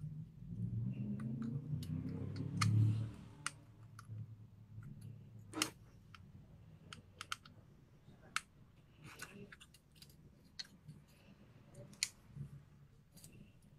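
A mini-ITX motherboard with a CPU cooler mounted, handled and turned on a hard floor. There is a low rumble of shifting and handling for the first three seconds, then scattered light clicks and taps.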